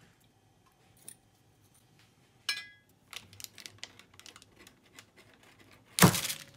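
Knife working into a block of frozen butter on a cutting board, a run of small clicks and scrapes, then a sudden loud crack with a heavy thump about six seconds in as the blade breaks through the hard butter and hits the board. Earlier, a single ringing clink.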